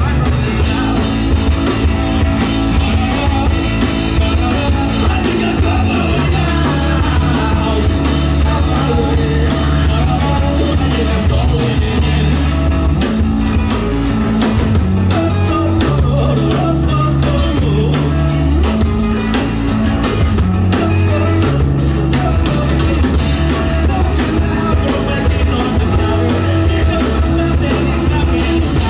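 Rock band playing live: guitar and drum kit with a singer's voice, in a loud, steady full-band mix with a driving beat.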